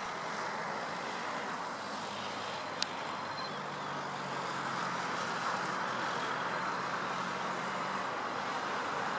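Airbus A340 airliner's four jet engines on final approach with the gear down: a steady rush of jet noise with a faint low hum, slowly growing louder as the aircraft nears. A short sharp click about three seconds in.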